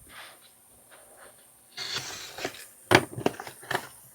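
Packaging being handled: a short rustle of paper or wrapping about two seconds in, then a few sharp clicks and knocks.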